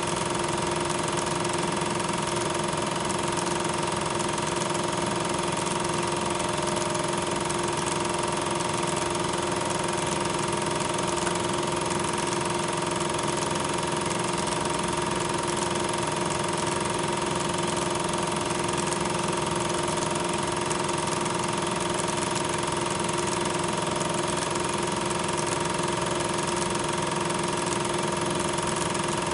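A steady, unvarying machine hum over a loud hiss, with two constant tones running through it and no changes.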